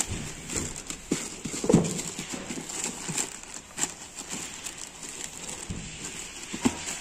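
Plastic courier mailer bag being handled and torn open by hand: the plastic crinkles and rustles, with irregular sharp crackles and knocks, the loudest a little under two seconds in.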